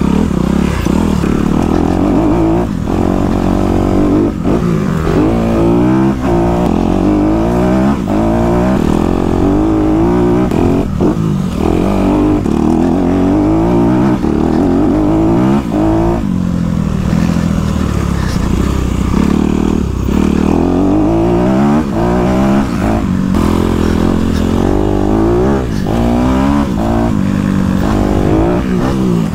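Motocross bike engine revving hard and rising in pitch again and again, dropping back at each gear change or throttle-off as the bike is ridden along a dirt track.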